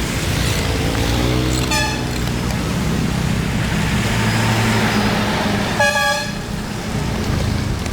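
A vehicle horn toots twice, briefly and faintly about two seconds in and louder about six seconds in, over the steady low hum of a running vehicle engine.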